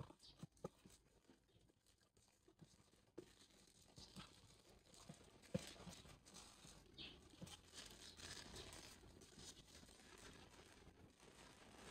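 Faint rustling and crinkling of plastic bags with scattered light clicks and knocks, as food is packed into bags.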